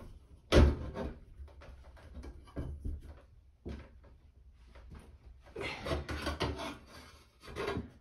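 Pry bar levering at an old bathroom exhaust fan's sheet-metal housing in a drywall ceiling: irregular scraping and knocks of metal on metal and drywall. The loudest is a sharp knock about half a second in, with a longer stretch of scraping and knocking around six seconds in.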